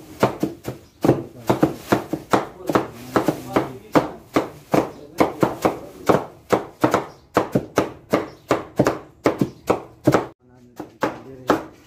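Two large cleavers chopping a mound of minced meat for chapli kabab in a wooden trough. The blows come quickly, about four a second, with the two knives' strikes overlapping. They stop briefly about ten seconds in.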